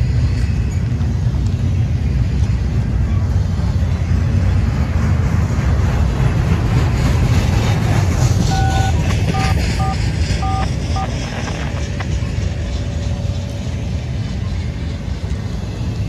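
Double-stack intermodal container train rolling past: a loud steady rumble of freight cars' wheels on the rails. A quick run of short electronic beeps sounds about halfway through.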